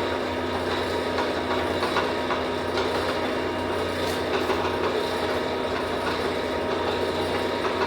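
A powered workshop machine running steadily, a constant hum with light rattling clicks scattered through it.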